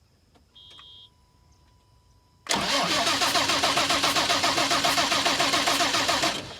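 John Deere 7420 tractor's six-cylinder diesel cranking on the starter for about four seconds with an even pulsing beat, without catching, then stopping abruptly: a crank-but-no-start fault that the owner traces to a relay. A short high electronic beep sounds about half a second in.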